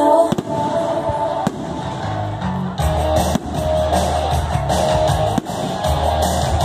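Music with guitar and a sustained bass line, with aerial firework shells bursting in several sharp bangs over it.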